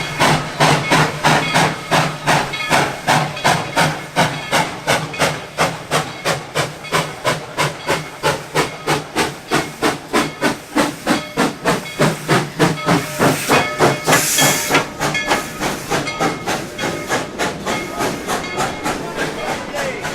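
Steam locomotive working, its exhaust chuffing in even beats about three a second with steam hissing. About thirteen seconds in, a louder burst of steam hiss. The beats then fade into a steadier hiss near the end.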